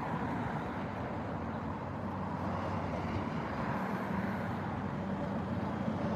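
Steady outdoor background noise, even and unbroken.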